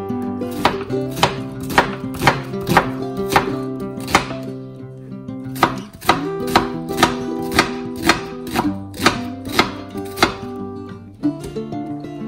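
Kitchen knife cutting through an onion onto a wooden cutting board, sharp knocks about two a second, with a short pause about four seconds in and stopping near the end. Background music runs underneath.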